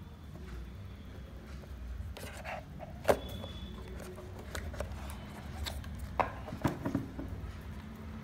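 A cardboard product box and its insert tray being handled by hand: scattered taps, rustles and scrapes, with one sharp knock about three seconds in and a few more clicks near the end, over a steady low rumble.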